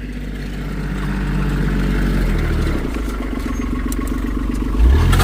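Skid steer loader's engine running and working under load, growing louder over the first couple of seconds, its pitch shifting partway through, with a louder low surge near the end.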